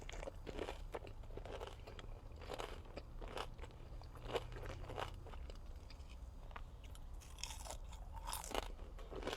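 Close-up chewing of a breaded fried mozzarella stick, with irregular crisp crunches of the coating between softer chewing.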